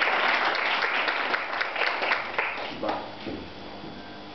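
Audience applauding, a dense patter of many hands that dies away about two and a half seconds in.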